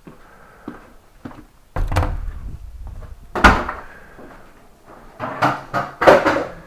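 A door being handled indoors: several knocks and thuds, the loudest about three and a half seconds in, and a quick run of them near the end.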